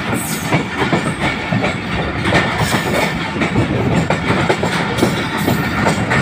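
Passenger coaches of a departing express train rolling along the track, heard from aboard: a steady rumble with wheels clicking over rail joints a few times each second.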